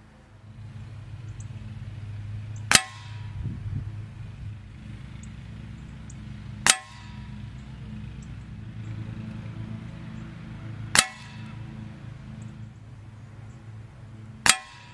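Air rifle shots with Gamo Red Fire pellets striking a paper target. There are four sharp cracks a few seconds apart, each with a brief ringing clang after it, over a steady low hum.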